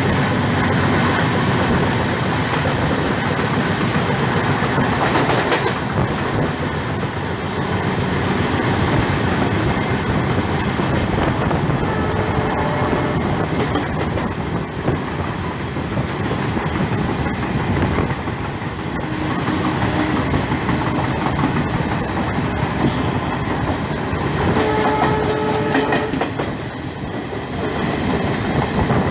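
Indian Railways passenger trains running side by side, a steady rumble with wheels clattering over rail joints, heard through an open coach door. Near the end a brief horn-like tone sounds for about a second.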